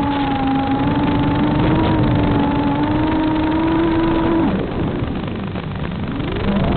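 Radio-controlled aircraft's motor whining steadily at high throttle, throttling down about four and a half seconds in and spooling back up near the end, with wind buffeting the microphone.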